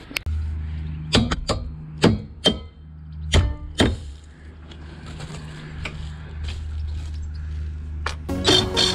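Hammer knocking on the steel roof-rack bar to free a jigsaw blade stuck hot in the cut: about six sharp strikes in the first four seconds, then a few fainter ones, over a steady low hum. Background music comes in near the end.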